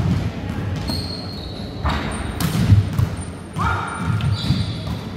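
Volleyball being played on a wooden indoor court: several sharp hits and thuds of the ball, with short high squeaks of shoes on the floor, echoing in a large hall.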